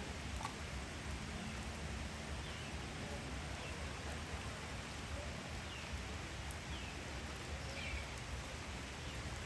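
Steady rain falling, an even hiss with a few faint, short high chirps over it.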